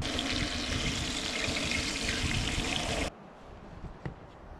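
Brook trout frying in oil in a cast-iron skillet, sizzling steadily and loudly, then cut off abruptly about three seconds in, leaving quiet outdoor background.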